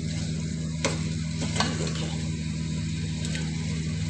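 Minced meat sizzling in oil in a steel pot while a ladle stirs it, with a couple of short ladle knocks against the pot about one and one and a half seconds in. It is the browning stage on high heat, after the mince has released its oil. A steady low hum runs underneath.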